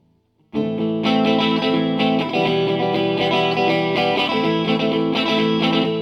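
Guitar played through a Zoom 504 Acoustic multi-effects pedal. It comes in suddenly about half a second in, after a brief silence, and then keeps playing chords and notes at a steady level.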